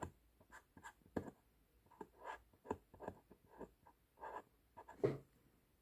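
Faint writing on a container's plastic cover: a string of short, irregular pen strokes, the strongest about five seconds in.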